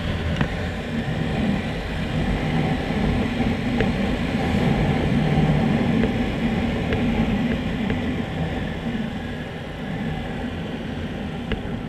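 Small dual-sport motorcycle engine running steadily while riding, with wind rushing over the microphone and road noise; the engine swells a little around the middle.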